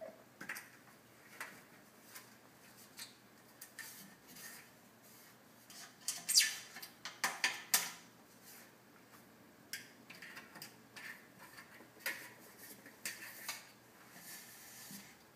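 A cat's claws scratching and scraping at a glass sliding door, in irregular bursts of harsh, ear-splitting scratchy noise, loudest around the middle.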